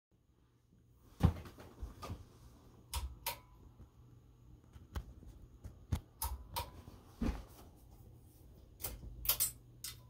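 Hunter Low Profile ceiling fan running with a low steady hum, while the pull-chain switch on its light kit is worked again and again: a series of sharp clicks and knocks, the loudest about a second in.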